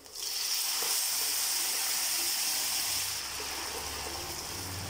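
Green leaf juice poured into a hot pan of oil with tempered onions and chillies, hissing loudly as it hits the oil. The hiss starts suddenly and eases after about three seconds.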